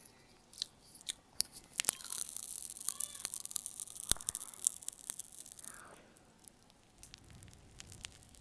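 Popping candy crackling in the mouth: a dense run of tiny high crackles and sharp pops, thickest from about two to six seconds in, then thinning out.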